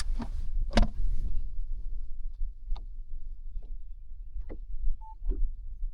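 Steady low rumble of wind and water around a fishing boat, with scattered knocks and clicks; the sharpest knock comes just under a second in.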